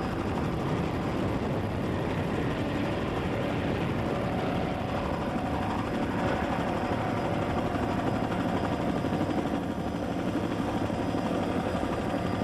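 Engines running in a steady, continuous drone.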